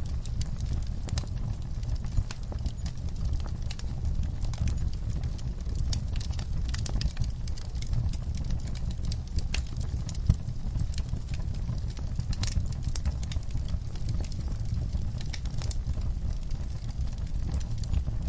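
Wood fire crackling: irregular sharp pops and snaps, several a second, over a steady low rumble, with one louder pop about halfway through.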